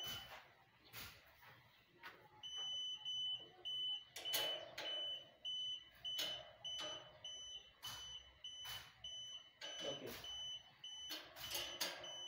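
Handheld satellite finder meter beeping steadily, evenly spaced high beeps about two or three a second starting a couple of seconds in: the sign that the dish is locked onto the satellite signal. Irregular knocks and clicks from the dish and its pole mount being handled.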